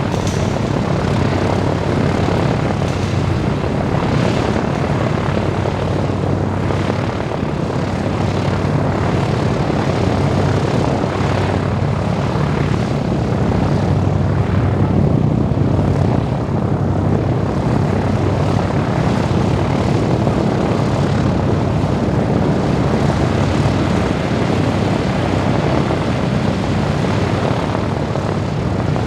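The four Wright R-1820 Cyclone nine-cylinder radial engines of a Boeing B-17G Flying Fortress running steadily, with a deep propeller drone.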